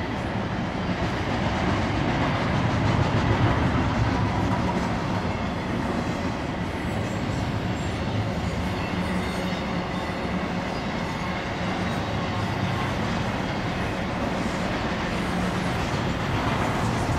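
Double-stack intermodal freight train's loaded well cars rolling past: steady noise of steel wheels running on the rails, a little louder about three seconds in.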